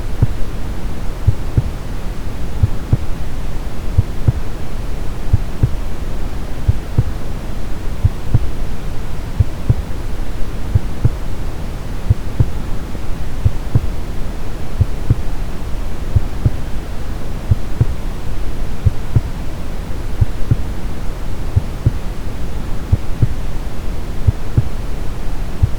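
Brown noise, a deep and even rumble, with a heartbeat sound: short, low thumps repeating at a steady pace.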